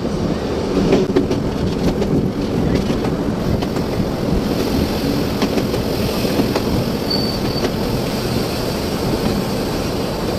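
Railway passenger coach running on the rails, heard from on board: a steady rumble with wheel clicks over the track joints, and a brief high squeal about seven seconds in.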